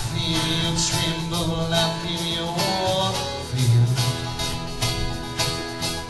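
Live band playing a country-bluegrass style song: plucked guitars over a steady beat, with a melodic lead line carried through the first few seconds.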